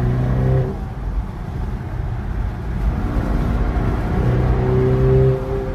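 Ferrari Portofino's twin-turbo 3.9-litre V8 heard from inside the cabin while accelerating in fourth gear, over road and wind noise. The engine note fades after about half a second, then builds again and holds steady before dropping away near the end.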